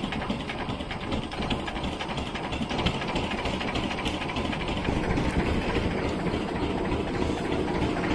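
A fishing boat's engine running steadily, with a fast even chugging.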